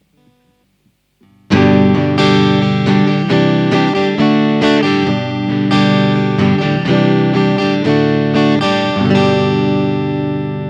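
KAMINARI Liquid electric guitar played on the pickup setting that combines the bridge humbucker's north coil with the neck pickup. A passage of picked notes and chords starts about a second and a half in, with fresh attacks throughout, and rings out at the end.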